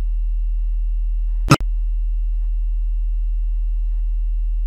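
Steady 40 Hz sine-wave test tone, very low and pure, for checking speaker bass response. About one and a half seconds in, a sharp click with a momentary dropout breaks it.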